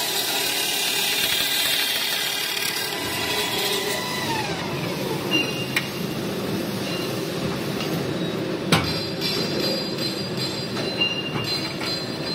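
425 CNC circular-saw pipe cutting machine cutting square metal tube: a high-pitched whine from the saw that glides down in pitch about four seconds in, then a rougher grinding run with metallic clanks, the loudest a sharp knock about nine seconds in.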